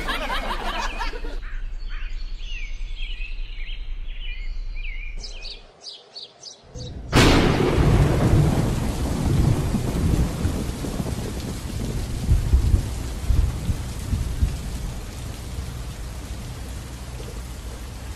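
A sudden thunderclap about seven seconds in, then steady hiss like heavy rain with deep rolling rumbles of thunder that swell again a few seconds later.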